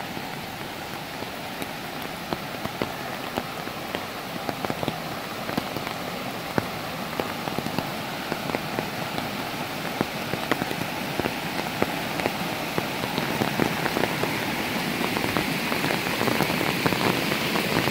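Rushing water under a steady patter of many small drops. The rush grows louder over the last several seconds as the flooded, muddy stream comes close.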